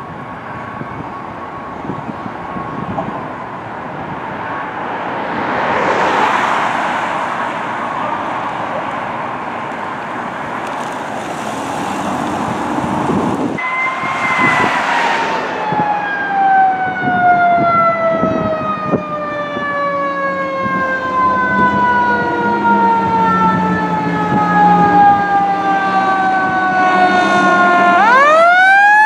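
Fire engine siren winding slowly down in pitch over about fifteen seconds, then spinning sharply back up near the end, with the truck's engine rumbling underneath. A steady siren tone and a rush of passing traffic come earlier.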